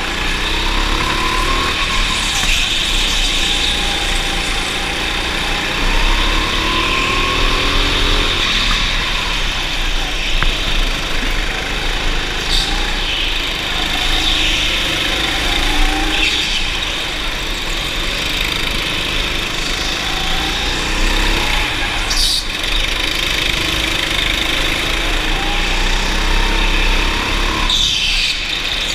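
Go-kart engine heard from on board, its pitch repeatedly rising under acceleration and falling back as the throttle lifts, over steady wind and track noise, with a few sharp knocks.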